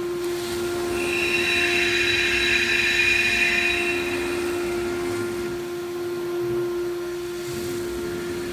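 CNC router spindle running with a steady whine, joined from about a second in to about four seconds by a louder, higher-pitched hissing noise.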